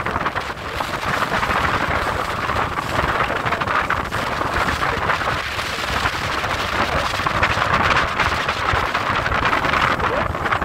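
Wind buffeting the microphone on a moving tour boat, over a steady rush of water and engine noise.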